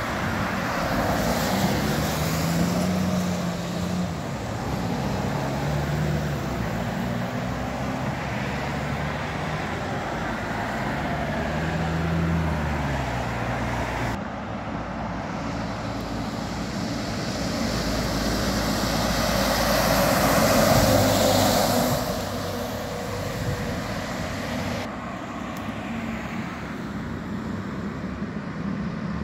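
Garbage truck engine revving up and down several times in the first half, over road traffic, then a car passing close by, loudest about 20 seconds in.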